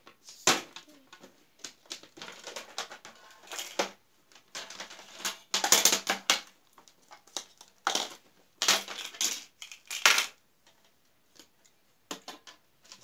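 Hard plastic toy pieces clattering and knocking as they are taken out of a plastic toy case and set down on a table: a string of clicks and rattles, loudest in bursts around the middle.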